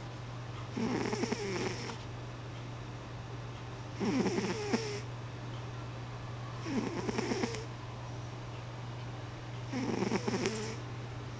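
A sleeping pet snoring: four rattly snores about three seconds apart, each lasting about a second, over a steady low hum.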